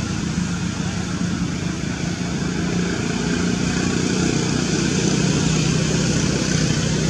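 Steady low motor drone, dropping slightly in pitch about halfway through, over a constant hiss.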